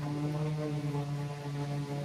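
A steady low mechanical hum holding one pitch, with a clear row of overtones.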